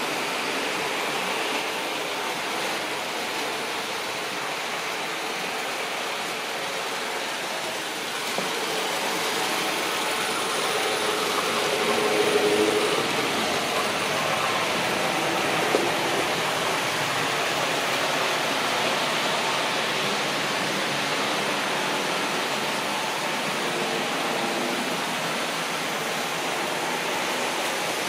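Märklin BR 120 model electric locomotive running on model railway track, pulling freight wagons: a steady whirring and rolling rattle of its motor and wheels on the rails, a little louder from about eight seconds in.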